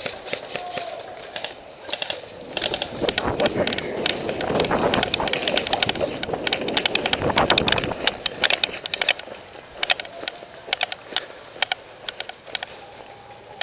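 A player running over dry ground and leaves, with footsteps crunching and gear clattering close to the microphone as many irregular sharp clicks over a rough rumble, densest in the middle and thinning out near the end.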